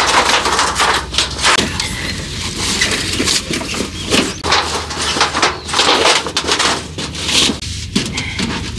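Thin titanium sheet of a roll-up stove chimney being handled and rolled into a tube, crinkling and clattering irregularly.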